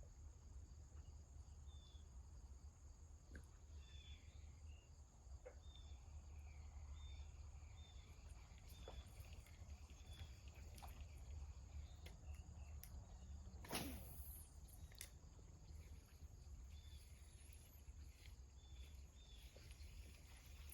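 Near silence: faint outdoor ambience with a low rumble, faint short high chirps repeating every second or so, and a sharp click about fourteen seconds in.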